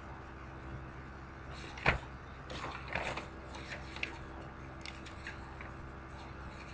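A steady low electrical hum, with one sharp knock about two seconds in, then a scatter of softer clicks and rustles.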